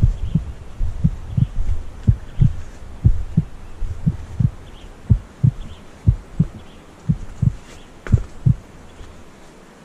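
Footsteps on a gravel road, picked up by a body-worn camera as a string of dull low thuds at a walking pace, about two a second, growing fainter toward the end.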